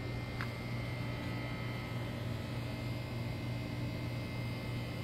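Steady low hum of room tone, with a faint steady high whine above it and one light click about half a second in.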